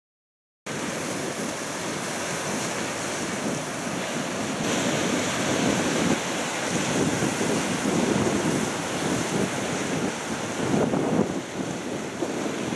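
Surf washing over shoreline rocks, mixed with wind buffeting the microphone; it cuts in suddenly just under a second in.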